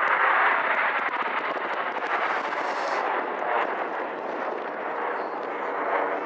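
Jet noise from the Red Arrows' formation of BAE Hawk T1 trainers climbing overhead: a broad, steady rush with a rough crackle, loudest in the first second and easing slightly as the jets pull away.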